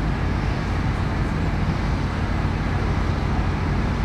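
Steady low outdoor rumble with no distinct events, of the kind road traffic makes.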